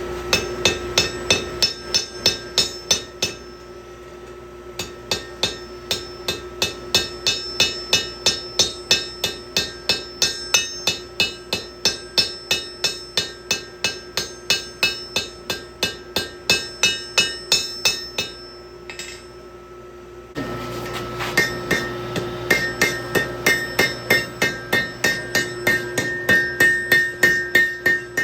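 Blacksmith's hand hammer striking hot steel on an anvil, a quick steady rhythm of about three ringing blows a second, with two short pauses, over a steady hum.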